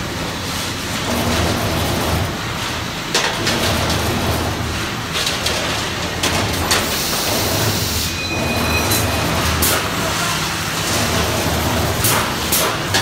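TJK 3D stirrup bending machine running, a steady low mechanical hum with sharp metallic clicks and knocks every few seconds as it bends steel bar into stirrups.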